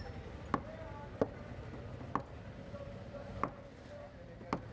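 A heavy cleaver chopping mackerel tuna on a wooden block: five sharp knocks at uneven intervals, roughly a second apart.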